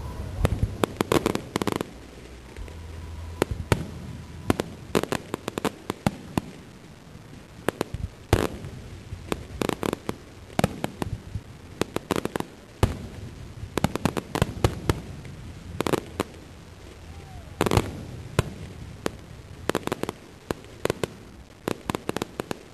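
Fireworks display: aerial shells bursting in an irregular run of sharp bangs and pops, often several in quick clusters, with short gaps between salvos.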